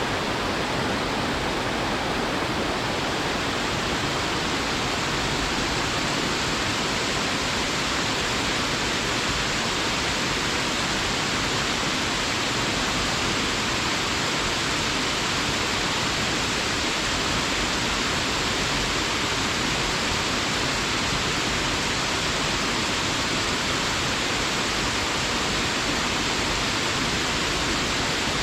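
Waterfall: water falling and splashing into a pool, a steady full rushing.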